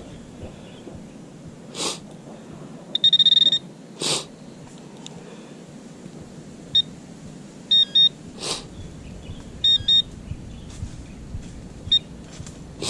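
Garrett handheld metal-detector pinpointer beeping as it sounds off on a small metal buckle: one steady high beep about three seconds in, then short chirps, some in quick pairs. A few brief rustling scrapes come in between.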